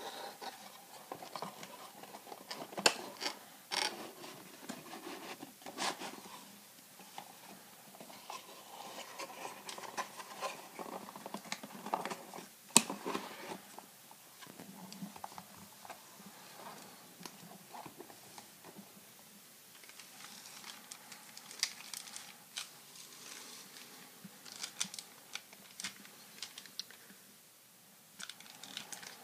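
Hands handling a cardboard collectible card box and foil-wrapped trading card packs: scattered taps, scratches and rustles, with one sharp click about 13 seconds in and crisper crinkling near the end.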